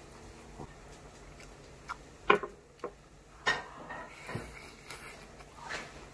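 Eating sounds: a few sharp clicks and smacks as metal chopsticks pick up a bite of pancake and it is eaten, the loudest a little over two seconds in.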